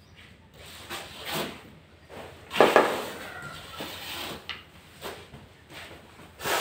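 Irregular knocks and scrapes of floor tiling work: a rubber mallet and hand tools against large porcelain floor tiles, with the loudest knock about two and a half seconds in.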